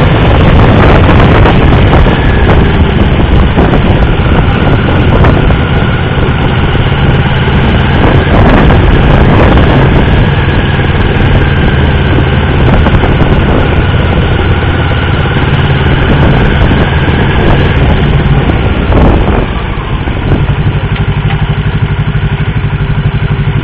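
Motorcycle engine running at low speed, heard close up from the bike itself, settling into a steady idle about twenty seconds in as the bike comes to a stop.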